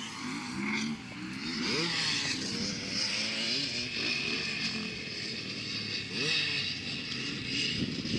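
Motocross bikes on a dirt track, engines revving up and down through the gears, the pitch repeatedly rising and dropping.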